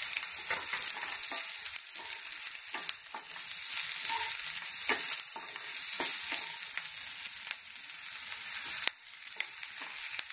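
Chopped onion, green chilli and capsicum sizzling in hot oil in a nonstick kadhai, stirred with a wooden spatula that scrapes and knocks against the pan at irregular moments over the steady hiss.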